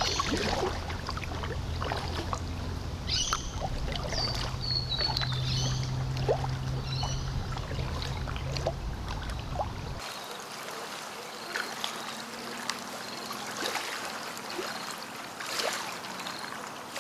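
Kayak paddle strokes with water splashing and dripping off the paddle blades. A bird chirps a few times a few seconds in, and a low steady hum drops away about ten seconds in.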